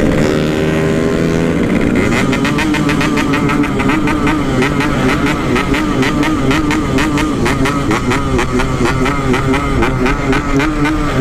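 Motorcycle engine running steadily at speed, with a fast, even pulsing from about two seconds in.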